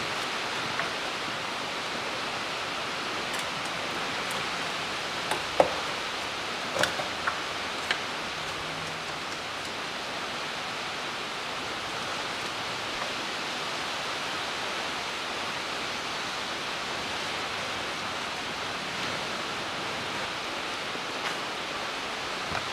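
Steady rain, heard as an even hiss, with a few light metal clinks from hand tools on engine-bay parts about five to eight seconds in.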